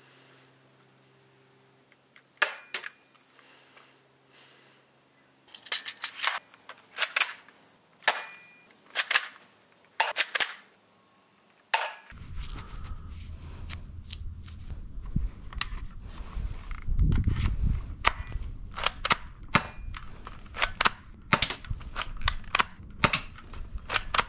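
Cheap spring-powered airsoft pistol styled like a MAC-10, cocked at the front and fired one shot at a time: sharp plastic clicks and snaps, single or in quick pairs, every second or two. About halfway through, a steady outdoor background comes up and the shots follow one another faster.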